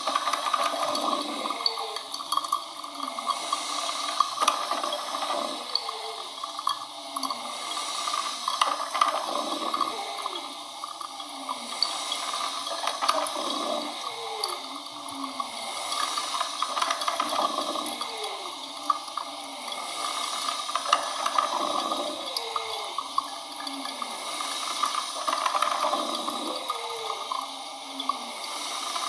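Coffee machine running: a steady watery hiss with short falling tones that recur about every two seconds.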